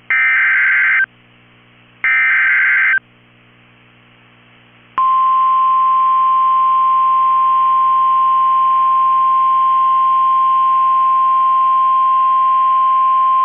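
NOAA Weather Radio emergency alert: the last two of three SAME header data bursts, buzzy one-second electronic squawks about two seconds apart, then about five seconds in the steady 1050 Hz warning alarm tone, one unbroken high beep. It is the alert signal that opens a Severe Thunderstorm Watch broadcast.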